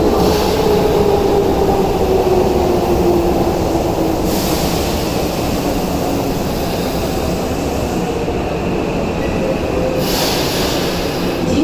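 Tokyu 8500 series subway train braking into the platform: its motor whine falls in pitch as it slows to a stop. Short bursts of air hiss come about four seconds in and again near the end as it halts.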